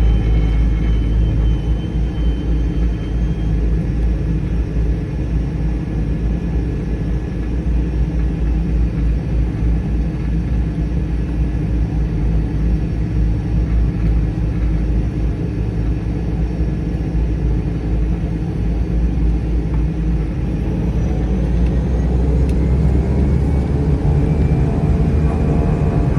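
Cessna 208 Caravan's PT6A turboprop engine running at low power: a steady rumble with faint thin whines above it. In the last few seconds a faint rising whine appears and the low drone grows stronger as the power comes up.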